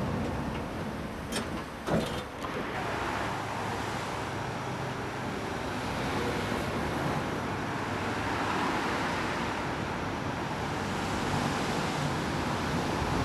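Three-section articulated Ganz tram running on street rails as it passes and pulls away, a steady rolling rumble of wheels on track. There are a few sharp clicks about two seconds in.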